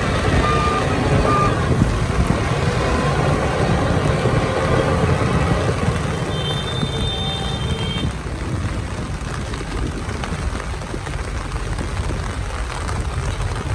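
Heavy diesel earthmoving machinery, a bulldozer and dump trucks, running steadily under load. A reversing alarm beeps a few times in the first couple of seconds, and a higher beeping tone sounds for about two seconds midway.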